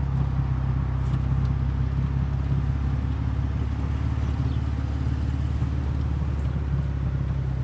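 A vehicle engine running steadily at idle, low and even, with no revving.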